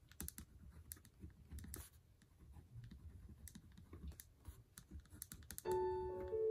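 Bic four-colour ballpoint pen writing block capitals on notebook paper: quick, irregular taps and short scratches of the tip. Music with piano-like notes comes in near the end.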